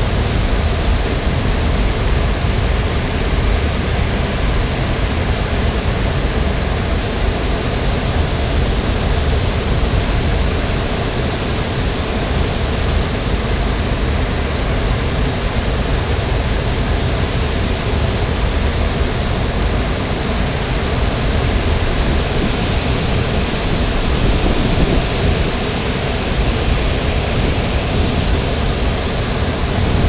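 Water pouring over a dam spillway and crashing onto rocks into the river below: a steady, loud rush with a heavy low rumble, unchanging throughout.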